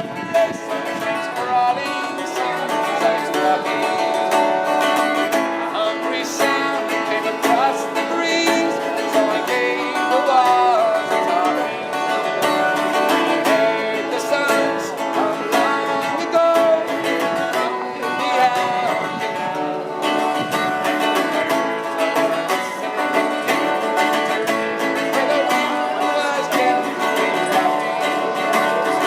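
Traditional folk music played on plucked string instruments, with a steady run of plucked notes.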